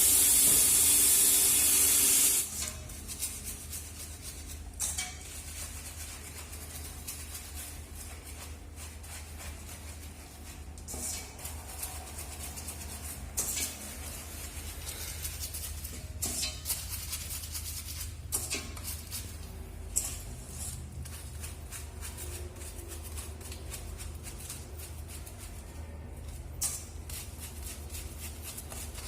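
Running water spraying hard, cutting off suddenly about two seconds in. Then quieter rubbing and scattered small knocks over a low steady hum.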